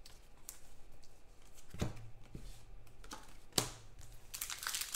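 Trading cards being handled: faint flicks and clicks of card stock as cards are slid and sorted, the loudest about two and three and a half seconds in. Near the end a pack wrapper begins to crinkle.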